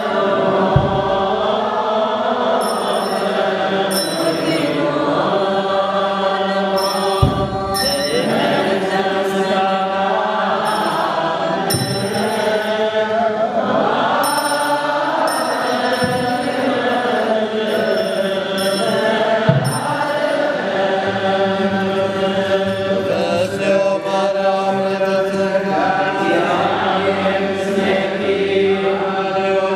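Voices singing a sustained, droning liturgical chant together, with a high ringing coming in now and then and a few brief low thumps.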